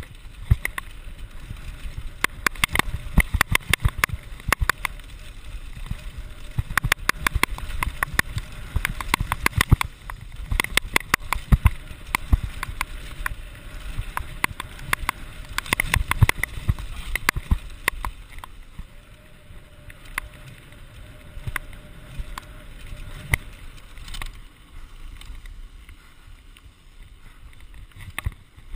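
Santa Cruz Nomad mk2 full-suspension mountain bike clattering down a rough gravel singletrack: many sharp rattles and knocks from the bike over a steady low rumble of wind and tyre noise on a chest-mounted camera. The rattling thins out about two-thirds of the way through as the ride eases.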